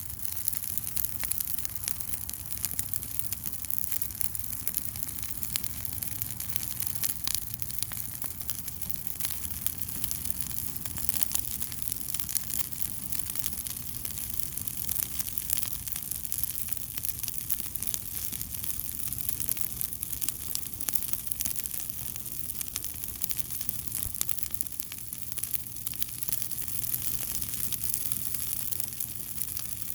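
Fire crackling: many quick, irregular pops and snaps over a steady hiss, with a low steady hum underneath.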